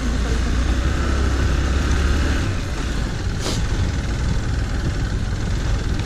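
Motorcycle engine running at low speed as the bike rides over a rough, snowy dirt track, heard from the rider's camera as a steady low rumble. A short click about three and a half seconds in.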